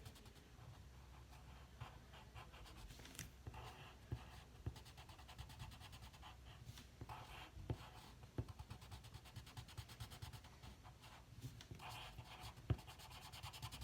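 Faint scratching of a pen or pencil on paper as small hearts are drawn, coming in short spells with a few light taps between.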